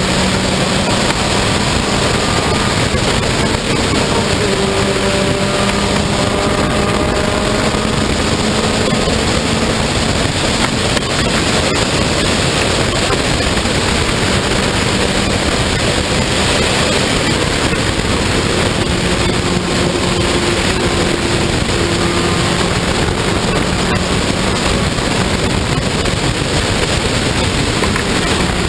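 Onboard sound of an open-cockpit race car at speed: the engine runs at a steady high note, shifting slightly in pitch now and then, under heavy wind rush on the microphone.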